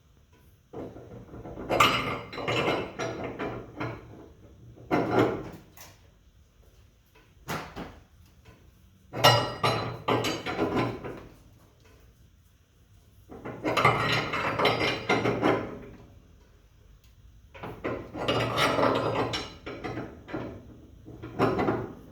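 Coil spring compressor's nut being turned down its threaded rod with a big wrench under load: metal-on-metal grinding and scraping in repeated strokes of one to three seconds, with short pauses between strokes.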